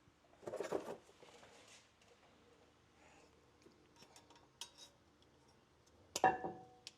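Metal brake parts and hand tools clinking against each other as the brake pads and pins are handled. A rattle comes about half a second in, a few light clicks follow around four seconds, and a sharp metal clink with a brief ring comes about six seconds in.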